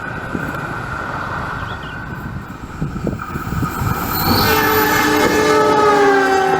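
Train running by, then a railway locomotive's horn sounds about four seconds in, a chord of several tones held to the end and sliding slightly lower in pitch: a Semboyan 35 horn signal.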